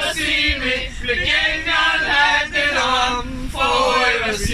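A group of men and women singing loudly together, a chant-like song in phrases with short breaks between them.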